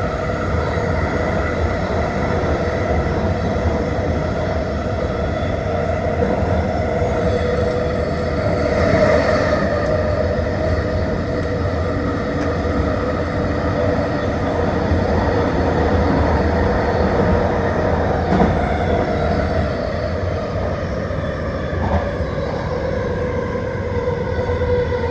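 Vancouver SkyTrain Millennium Line train running along the guideway: a steady rumble with several held whining tones from its linear induction motor drive. A brief rush of noise comes about nine seconds in, and a single sharp click around eighteen seconds.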